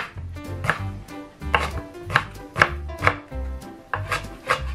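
Kitchen knife chopping kimchi on a wooden cutting board, about two knocks of the blade on the board a second at an uneven pace, with background music underneath.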